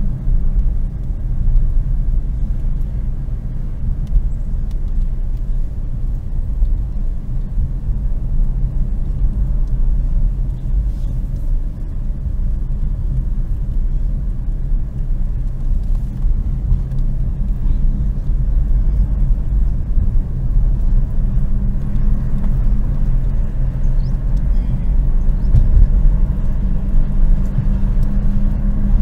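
Car engine and tyre rumble heard from inside the cabin while driving: a steady low drone.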